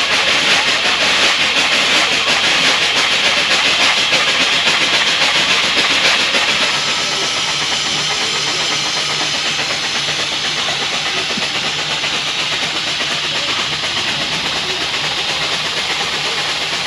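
Steady hiss of escaping steam from a standing 1916 Glover steam logging locomotive. It eases off a little about seven seconds in.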